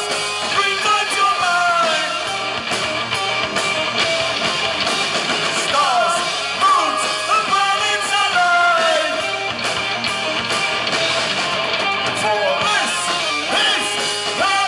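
A live heavy metal band playing: electric guitar, bass guitar and drums, with a vocalist singing over them.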